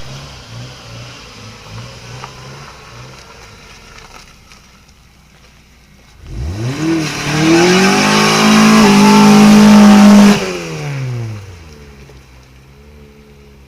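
Car engine running at idle with an even pulsing note, then revved hard about six seconds in, held high for about three seconds and let fall back to idle.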